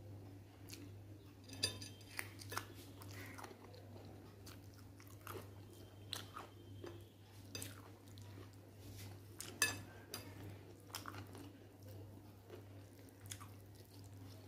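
Close-up chewing and wet mouth clicks of someone eating rice and chicken curry by hand, with scattered short clicks and two sharper ones, one about two seconds in and one near ten seconds. A steady low hum lies underneath.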